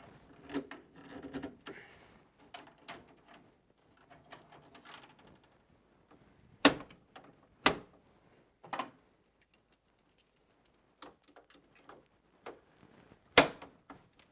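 Circuit breakers being snapped onto the bus of a breaker panel: a string of sharp plastic clicks, with four loud snaps (three about a second apart in the middle and one near the end) and lighter clicking and rattling of handled parts and tools between.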